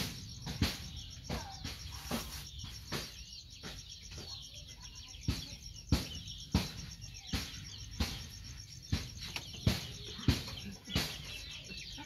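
Irregular sharp taps and knocks, about one or two a second, over birds chirping in the background with a fast high trill.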